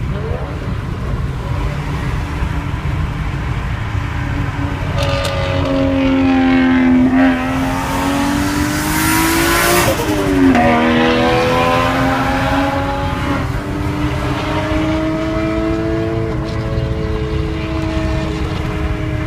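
Toyota Soarer JZZ30's engine running under changing revs. The pitch rises to a peak about halfway through, drops sharply, then climbs slowly again.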